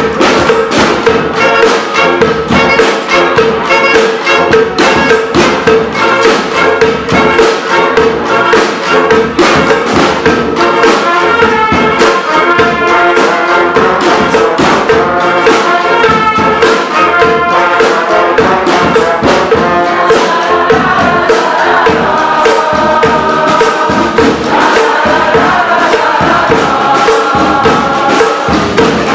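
Brass street band playing an up-tempo tune: horns over a steady, driving drum beat with tambourine.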